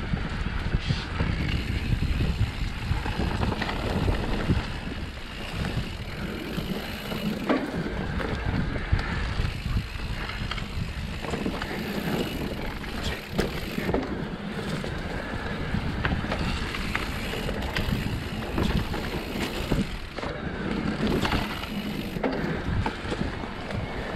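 Mountain bike ridden fast down a winding dirt singletrack: a steady low rumble of tyres and frame with frequent knocks and rattles from the bike going over bumps.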